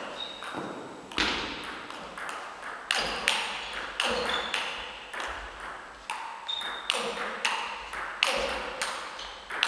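Table tennis rally: a celluloid ball struck back and forth with rackets and bouncing on the table, a steady run of sharp clicks roughly one to two a second, each ringing briefly in the hall.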